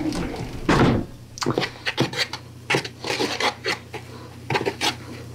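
A spoon stirring beer batter in a plastic bowl: irregular scraping and tapping against the bowl, with a louder knock about a second in.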